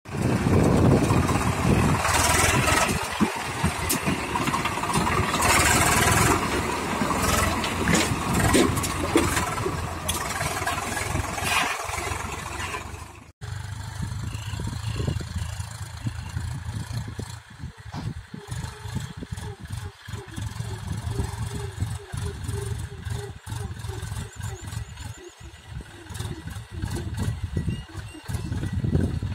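Diesel engines of a Swaraj 744 FE tractor and a backhoe loader running close up. After a sudden cut about halfway, a Massey Ferguson tractor's engine, quieter and farther off, pulling a loaded trolley.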